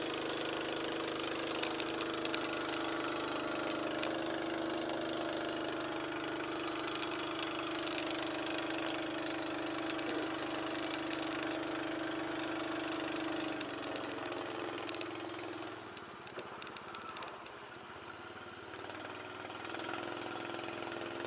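A small engine running steadily at idle. It changes pitch and drops in level about thirteen seconds in, then picks up again near the end.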